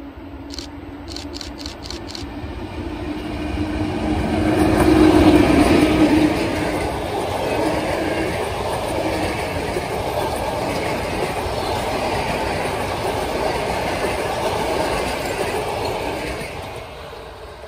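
PKP EP08 electric locomotive passing with a low hum, loudest about five seconds in, followed by a rake of passenger coaches rolling by with steady wheel-on-rail noise that fades away near the end.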